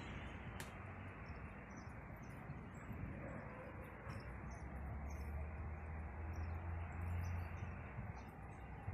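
Outdoor ambience under an approaching thunderstorm: steady background noise with many faint, scattered high chirps, and a low rumble that swells for about three seconds in the middle.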